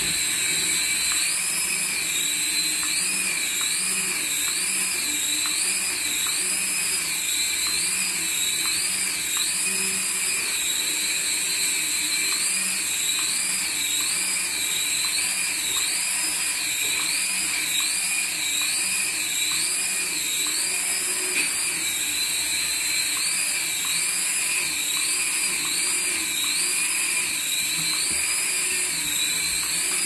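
High-pitched whine of a toy RC helicopter's small electric rotor motors. The pitch keeps rising and falling about once a second, with short steady stretches in between.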